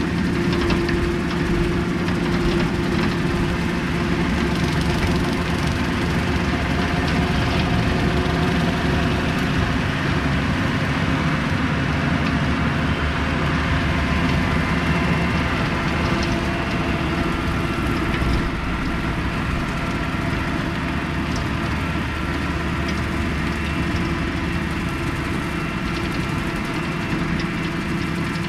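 John Deere 4066R compact tractor's three-cylinder diesel engine running steadily under load while its mower cuts grass, getting slightly quieter about two-thirds of the way in.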